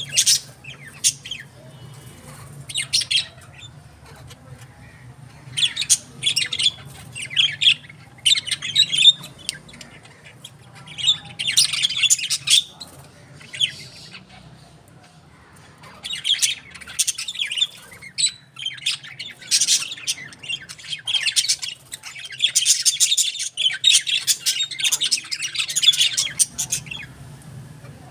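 Birds chirping and squawking in repeated quick bursts, over a steady low hum.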